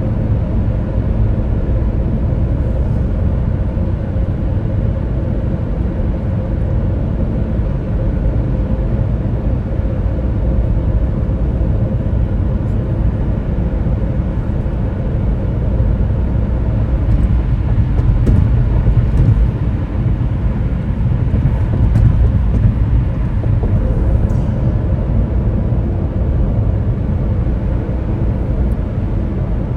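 Steady low rumble of road and engine noise from a moving car, heard from inside.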